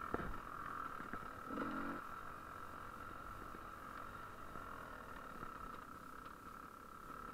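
GasGas EC300 two-stroke enduro motorcycle engine running while the bike is ridden, with a steady engine note and a couple of louder bursts in the first two seconds.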